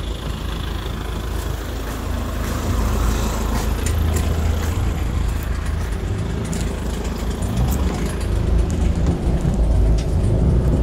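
Pickup truck engine running, a steady low rumble that grows louder about two and a half seconds in, with scattered light clicks and taps over it.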